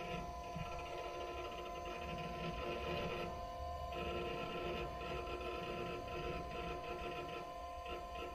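Steady electronic drone of several held tones over a low hum, with a faint hiss that comes and goes.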